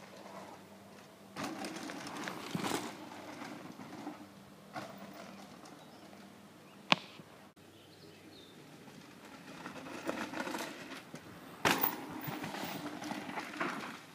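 Mountain bikes riding past on a dirt trail, their tyres crunching over dirt and gravel, swelling and fading as a rider passes, twice. A single sharp click about seven seconds in, and a hard knock during the second pass.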